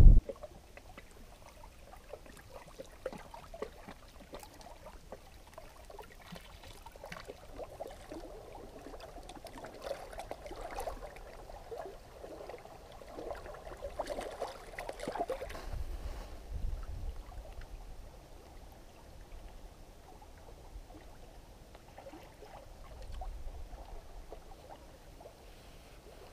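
Small wind-driven waves lapping and splashing against boulders at a lake's edge, an irregular gentle wash of water, with now and then a low rumble of wind on the microphone.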